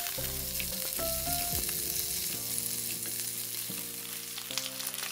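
Hilsa fish steaks sizzling steadily as they shallow-fry in hot mustard oil in a pan, with soft background music underneath.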